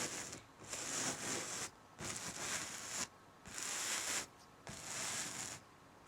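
Even, repeated scratching strokes across fabric: about five long, hissy sweeps, each roughly a second long with short pauses between them.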